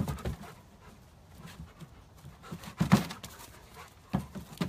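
A dog panting, with a few sharp knocks or thumps; the loudest comes about three seconds in.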